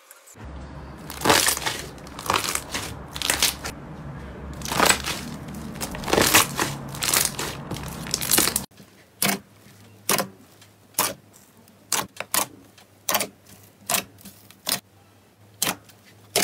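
Hands squeezing and stretching slime, with a dense run of crackling squishes. About halfway the sound changes abruptly to separate sharp pops and clicks, roughly one a second, as a hand presses into thick glossy slime.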